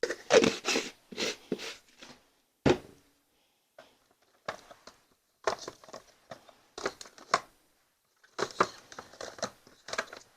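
Handling of acrylic paint containers and palette tools: a string of irregular short clicks, scrapes and rustles.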